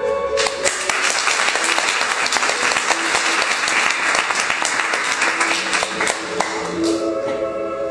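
Audience applauding, starting about half a second in and dying away near the end, with the performance music continuing faintly underneath.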